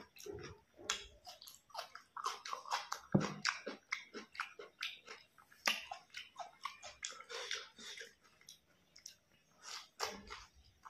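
A person chewing mouthfuls of raw and boiled vegetables, such as a tomato slice and leafy greens, close to the microphone: many short, wet crunches and mouth clicks.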